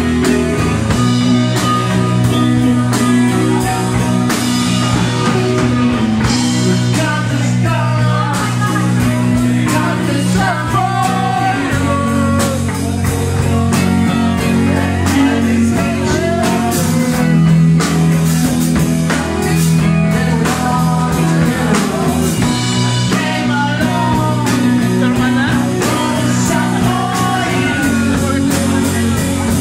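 Live rock band playing loud and steady: electric bass and drum kit with cymbals, and a lead melody line that bends in pitch above them.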